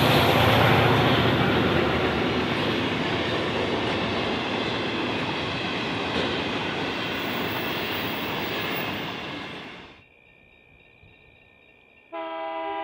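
Long rake of empty grain hopper wagons rolling past with steady wheel-on-rail noise that slowly fades, cut off suddenly about ten seconds in. Near the end a locomotive horn sounds a steady chord.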